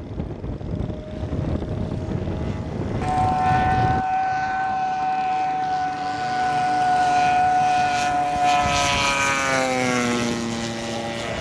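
RC model SBD Dauntless warbird's propeller engine on a fast, very low pass: a steady engine note that grows louder and then drops in pitch about nine to ten seconds in as the plane goes by. A low rumbling noise fills the first few seconds.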